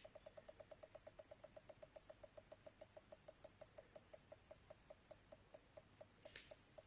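Commodore Amiga 500 switch-mode power supply making a faint, regular high clicking, the fault it shows at power-up. The ticks slowly space out after the power is switched off. A brief soft rustle near the end.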